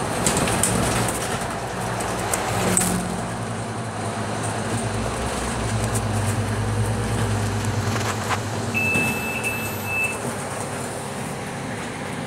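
Cabin sound of a Scania K310UB city bus under way: its diesel engine running with road noise and rattles from the body and fittings. A short high steady tone sounds about nine seconds in.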